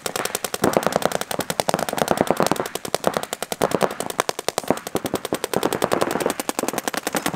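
Paintball markers firing rapidly in a near-unbroken string of sharp pops, about ten shots a second.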